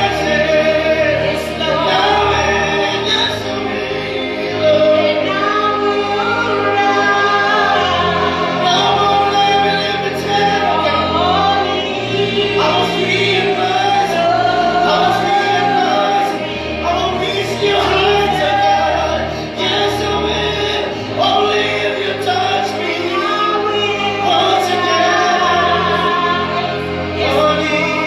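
Gospel worship song: singing over sustained keyboard chords, the bass note changing every few seconds.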